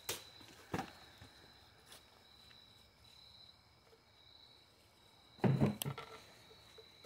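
Crickets chirping steadily as a backdrop. A sharp smack just after the start as a katana strikes a liquid-filled plastic bottle on a post, with a second knock a moment later, then about five and a half seconds in a louder flurry of knocks as another sword cut takes the top off a bottle.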